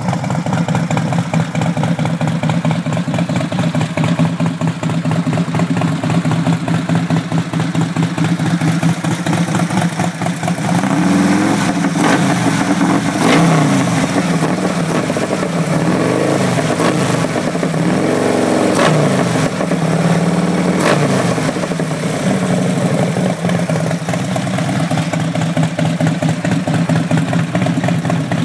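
Harley-Davidson V-twin running through a 2-1-2-1 exhaust: it idles steadily, then gets a series of throttle blips, rising and falling in pitch several times, before settling back to idle.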